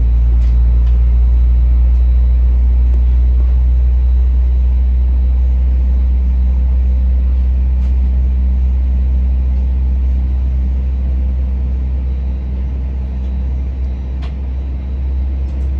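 Airbus A321 cabin drone while taxiing: the jet engines at taxi power, heard from inside through the fuselage, make a loud, steady, very deep rumble with low hums above it. The sound eases slightly in the last few seconds.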